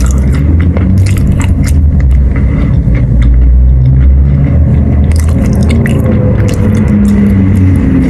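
A person biting and chewing lumps of Khrapovsky chalk close to the microphone: many small, sharp crunches over a low mouth rumble.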